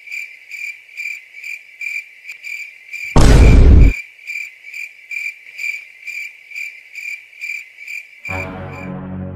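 Crickets chirping in an even, steady rhythm of about three chirps a second, a comic 'awkward silence' effect. About three seconds in, a loud boom-like burst lasts under a second. Near the end, a low droning gong-like musical note comes in.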